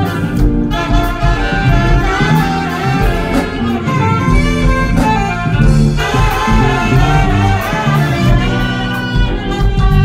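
Two saxophones playing a jazzy melody together over a live band, with a steady bass line and drums and cymbals keeping the beat.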